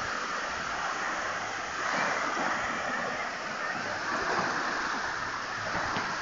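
Small sea waves breaking and washing up on a sandy beach: a steady rush of surf that swells a little about two seconds in and again past four seconds.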